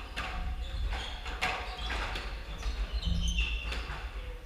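Squash ball knocking off racquet strings and court walls in a rally, a series of sharp knocks with a hollow echo, mixed with short squeaks of sneakers on the hardwood court floor.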